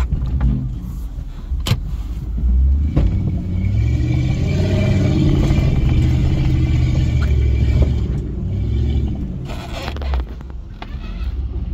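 Off-road SUV engine revving hard under load, its pitch rising and falling for several seconds as it drives uphill. There is a sharp knock a little under two seconds in.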